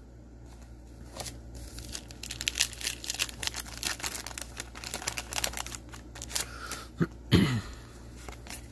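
Wrapper of a hockey card pack crinkling and tearing as it is pulled from the box and ripped open, a dense run of crackles. Near the end, a short voice sound falling in pitch.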